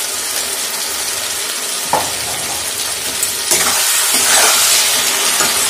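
Potatoes, masala and freshly added ground tomato paste sizzling in hot oil in a wok as a flat metal spatula stirs them. There is a single sharp click about two seconds in, and the sizzling and stirring get louder from about three and a half seconds.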